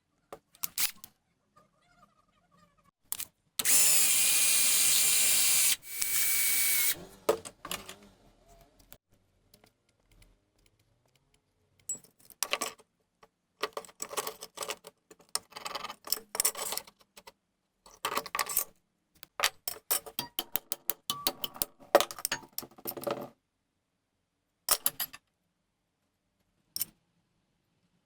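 A power tool runs loudly for about two seconds, stops, then runs again for about a second. It is followed by a long series of sharp clinks and clatters of hard metal parts being handled.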